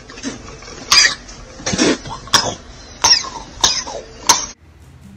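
A person coughing hard in a thin, low-quality phone recording: about six harsh coughs spaced roughly half a second to a second apart, cut off abruptly near the end.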